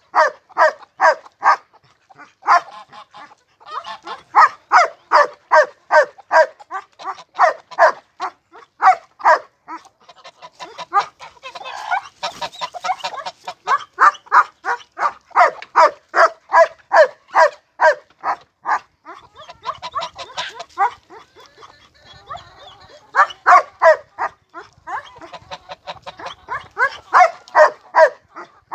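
An animal calling over and over in short, even calls, about three a second, with a few brief pauses.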